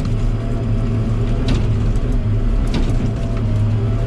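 Timber King 560 log loader's engine running steadily with a low hum, with two short clicks or knocks, one about a second and a half in and another near three seconds.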